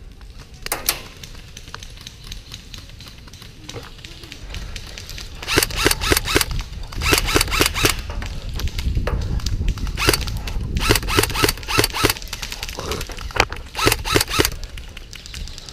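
Airsoft guns firing in rapid bursts of sharp clicks from about five seconds in, over a low rumble.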